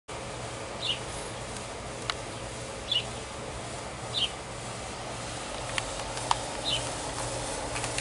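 Outdoor ambience with a steady low hum. Short high chirps come every second or two, and a few sharp clicks sound between them.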